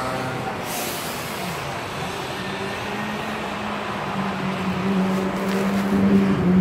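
Road traffic passing close by: vehicle engines running, with a steady low hum that grows louder toward the end and a brief hiss about a second in.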